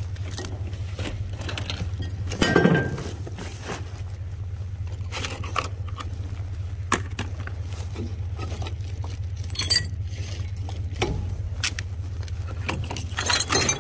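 Plastic packaging and a tote bag being handled, with scattered clinks and knocks and louder rustles about two and a half seconds in and near the end, over a steady low hum.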